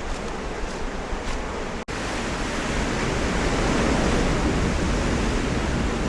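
Steady rushing of sea surf washing onto a beach, swelling a little in the second half, with a brief dropout about two seconds in.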